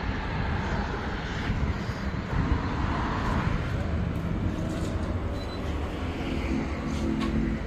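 Street traffic noise, a steady rumble of passing vehicles. About six seconds in, background music with steady held notes comes in.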